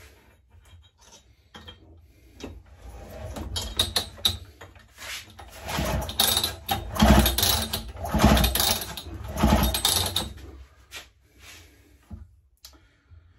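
Partner K650 cut-off saw's two-stroke engine cranked over by its recoil pull starter several times, about one pull a second, spinning freely with the spark plug out for a spark test. Some handling clicks come before the pulls.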